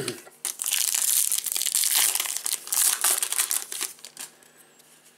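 Trading-card pack wrapper crinkling as it is handled. The crinkling starts about half a second in and stops about four seconds in.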